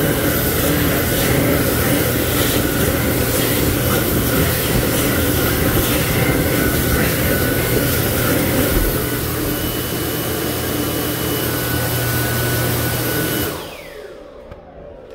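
Dyson Airblade dB hand dryer blowing at full power, a loud steady rush of air with a high whine, a hand held in the air blades. About thirteen seconds in it cuts out, and the motor's whine falls away as it spins down.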